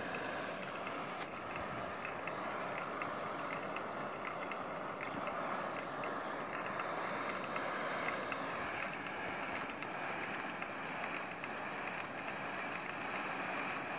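Multi-cylinder model Stirling engine running steadily, with a fast, even mechanical rattle from its moving parts and the whir of its spinning propeller.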